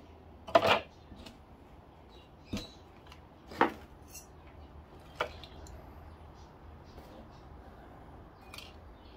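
Tangled copper wire windings from CRT deflection yokes dropped by hand into a plastic scale bowl, clattering about four times in the first five seconds, the first the loudest, then only faint small ticks.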